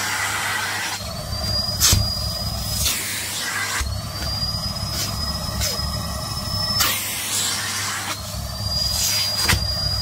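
Canister vacuum cleaner running steadily while its nozzle is worked over a shiny nylon puffer jacket, with crinkly rustles of the fabric. A high, thin whistle comes and goes three times.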